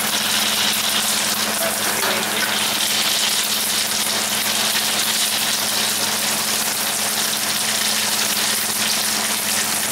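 Mustard and cumin seeds sizzling steadily in very hot oil in a small wok: the tempering (tadka) stage of an Indian dish. A steady low hum runs underneath.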